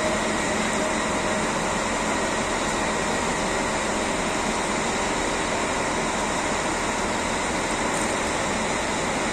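PKP Intercity ED161 Pesa Dart electric multiple unit rolling slowly along the platform: a steady noise of the train's running gear and onboard equipment, with faint steady whine tones over it.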